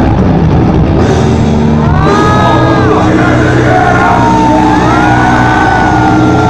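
Loud live metal band playing: distorted electric guitars, bass and drums through the stage PA, with high sliding tones that rise and fall above the mix from about two seconds in.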